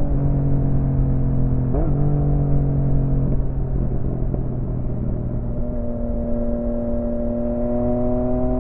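Yamaha XSR900's inline-three engine running through an M4 aftermarket exhaust at a steady road pace. The note dips and glides briefly about two seconds in, goes rough for a couple of seconds in the middle, then holds a steady tone that climbs slowly.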